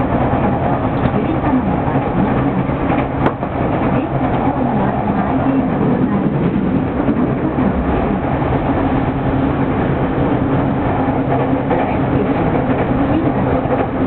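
Electric commuter train running at speed, heard from inside the car: a steady rumble of wheels on track with a low hum running through it, and one short click about three seconds in.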